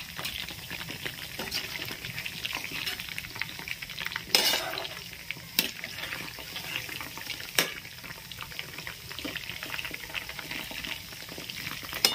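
Batter-coated chicken pieces deep-frying on low heat in an open kadai of oil, a steady crackling sizzle. A few sharp clinks of a utensil against the metal pan cut through it, the loudest about four seconds in and two more within the next few seconds.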